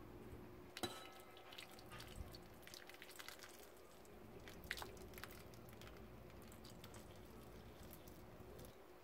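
Boiling water poured in a thin stream into a stainless steel bowl over two tomatoes, faintly trickling and splashing; the pour stops just before the end. About a second in there is a single sharp metallic clink from the bowl.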